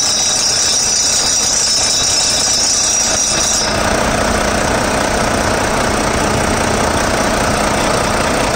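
Volvo D13 diesel engine running, with noise from a drive belt tensioner whose pulley bearing is worn and has free play. A high-pitched noise sits over the engine and cuts off about three and a half seconds in, leaving the engine running steadily.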